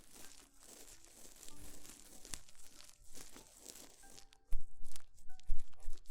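ASMR ear cleaning on a binaural microphone's ear: close scratching, scraping and crinkly rustling with small clicks, and loud low bumps against the mic in the second half. Soft background music plays underneath.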